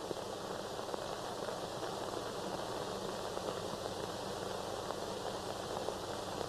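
Steady hiss of an old film soundtrack, with a few faint crackles.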